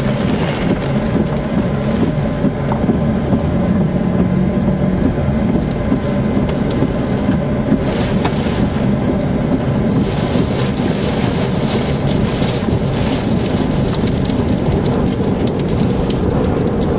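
Heavy storm rain and wind noise heard from inside a moving car, over the low sound of the car running on the road. From about ten seconds in, drops strike the windshield harder, making a dense crackle of sharp ticks.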